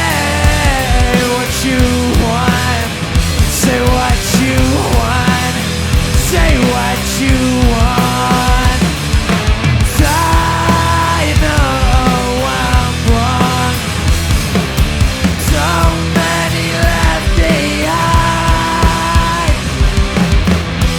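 Loud rock band playing an instrumental passage: a lead guitar line with pitch bends and long held notes over bass and drums.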